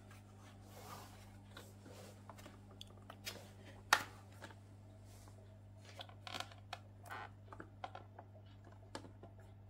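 Plastic filter parts and packaging being handled: scattered light clicks and rustles, with one sharp click about four seconds in, over a steady low hum.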